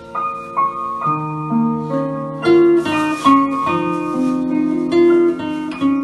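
Acoustic guitar playing a film melody: single plucked notes, each left ringing under the next.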